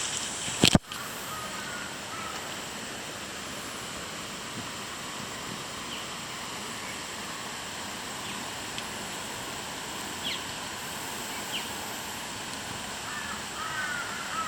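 Outdoor ambience: a steady hiss with a sharp knock under a second in, a few faint bird chirps, and a bird calling repeatedly near the end.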